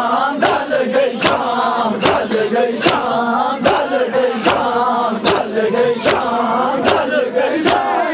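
Crowd of men chanting a noha in unison while beating their chests (matam): a sharp slap of many hands on chests lands in a steady rhythm about every 0.8 seconds, with the chanted voices carrying on between the beats.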